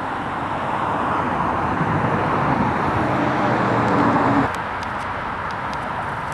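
A motor vehicle going by: engine drone and road noise grow louder over a few seconds, then cut off abruptly about four and a half seconds in.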